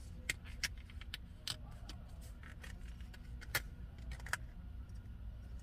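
A scattered series of light, sharp clicks and taps from small objects being handled, about a dozen in all, over a steady low rumble.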